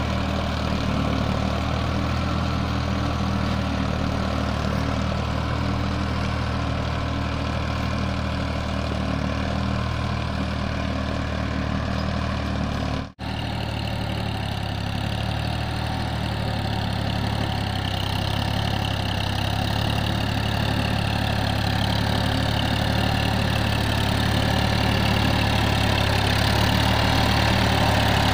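Ford 3600 tractor's diesel engine running steadily under load as it pulls a plough through sandy soil. The sound cuts out for an instant about halfway through, then grows louder toward the end.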